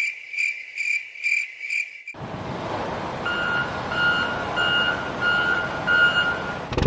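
Electronic beeping, about two beeps a second. About two seconds in it gives way to a vehicle's steady running noise with slower, lower reversing-style beeps, which cut off suddenly near the end.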